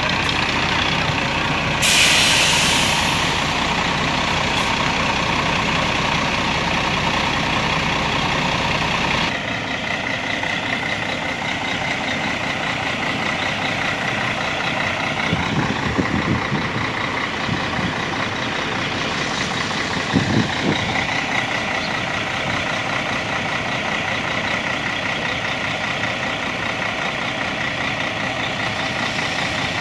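Heavy diesel bus engine running, with a short sharp air-brake hiss about two seconds in. The deepest part of the engine sound drops away about nine seconds in, and a steady engine sound carries on.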